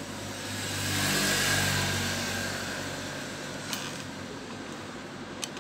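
A motor vehicle engine passing by, swelling to its loudest about a second and a half in and then fading away. Two short sharp clicks follow near the end.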